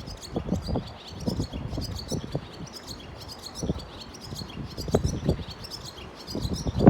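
Barn swallow singing a fast, continuous twittering song of rapid high chirps, with strong wind gusting on the microphone. It is a male's song, which the uploader suspects comes from a bird still without a mate.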